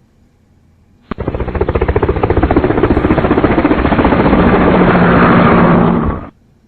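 Loud, rapidly pulsing engine sound that starts abruptly about a second in and cuts off suddenly about five seconds later.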